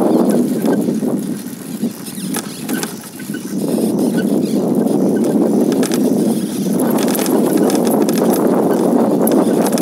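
Rumbling wind buffeting on the microphone and tyres rolling over a loose, stony dirt track, with scattered clicks and rattles from gravel and the bumps; it eases briefly a couple of seconds in, then picks up again.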